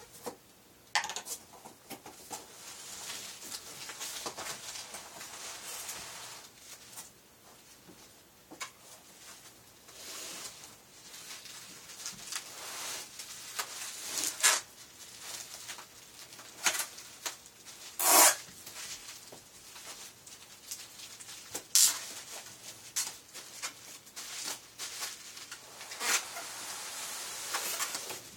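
Packaging being handled and unwrapped: stretches of rustling and scraping with scattered sharp clicks and knocks, and a louder crackle about eighteen seconds in.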